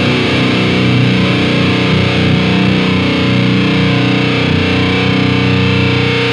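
Electric guitar played through a Diezel VH2 tube amp and a Marshall 4x12 cabinet, with heavy distortion. Chords are held and left ringing.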